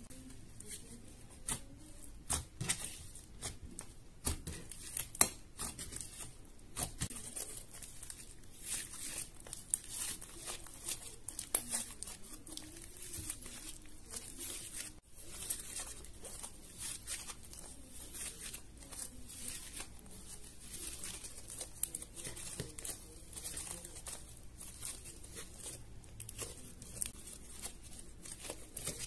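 Slime being kneaded, folded and stretched by hand with clay worked into it: a run of irregular sticky crackles and little pops, with a brief break about halfway.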